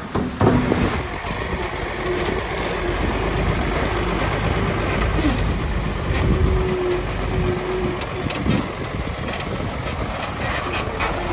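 Heavy diesel construction machinery running steadily, with a short burst of hiss about five seconds in.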